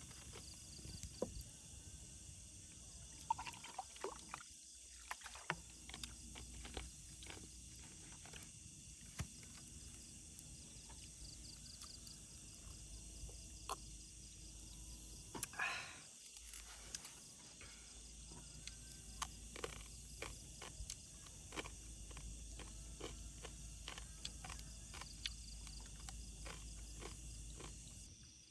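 Quiet outdoor ambience: a steady high hiss with many small, scattered clicks and crackles, and one brief louder rustle about halfway through.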